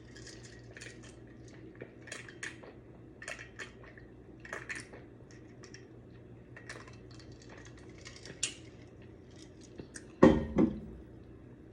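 Close-miked eating of a seafood boil: scattered small clicks and cracks of shells and utensils, with mouth smacking between them. One louder burst comes about ten seconds in.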